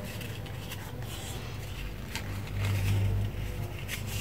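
Faint clicks and rustles of colored paper being handled and cut, over a low steady hum that swells for about a second near the middle.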